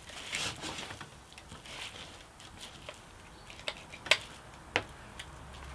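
Metal soil block maker being pressed and worked down into wet potting compost in a plastic tray: soft scraping and squelching, with a few sharp clicks about four seconds in.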